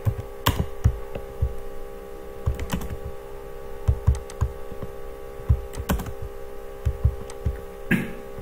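Keystrokes on a computer keyboard, irregular clicks a few per second as code is typed, over a steady electrical hum.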